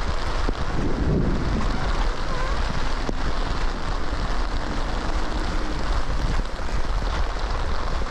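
Heavy rain falling steadily on the umbrella and the wet road, with wind rumbling on the microphone.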